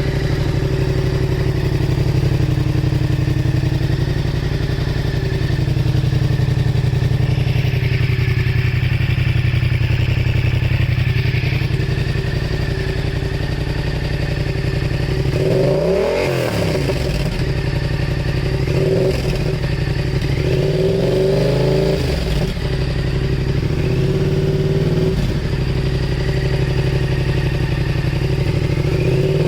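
Yamaha MT-07's parallel-twin engine running through a replica Akrapovič full exhaust with its baffle fitted, idling steadily. From about halfway through the throttle is blipped in a few short revs that rise and fall, with another rev starting near the end.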